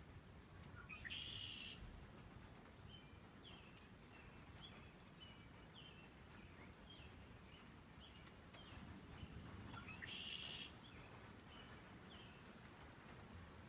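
Faint songbirds calling: two short buzzy trills about nine seconds apart, one near the start and one near the end, with many brief down-slurred chirps between them. A faint low rumble runs underneath.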